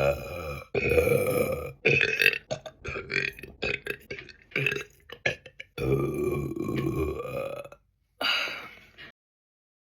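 A woman belching again and again: long, drawn-out, low belches with a run of short choppy ones between them. The sound cuts to silence about nine seconds in.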